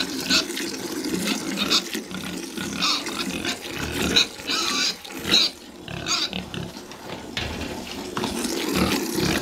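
Pigs grunting in their pen, over the short hissing spurts of milk squirting into a pail as a cow is milked by hand, about one or two squirts a second.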